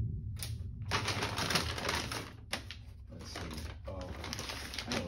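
Packing paper crinkling and rustling in bursts as it is pulled and crumpled out of a cardboard box.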